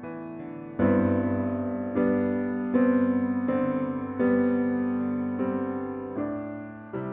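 Background music: slow keyboard chords in the style of an electric piano, a new chord struck every second or so, each fading away.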